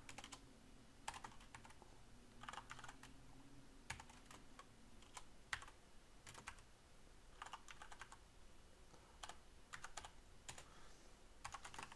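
Faint computer-keyboard typing: irregular keystrokes, singly and in short runs, with pauses between them.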